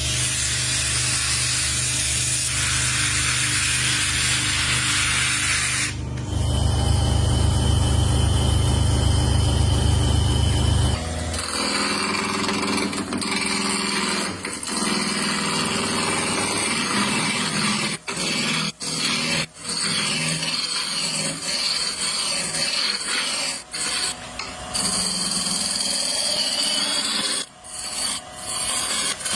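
Woodworking tools working wood, in several abruptly joined sections: a steady machine hum with hiss, then a heavy low rumble, then a long stretch of rubbing and rasping on wood, broken by a few sudden gaps.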